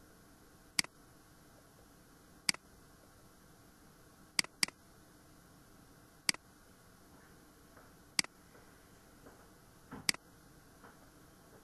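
Computer mouse button clicks: single sharp clicks about every two seconds, twice as a quick double click, over a faint steady hiss.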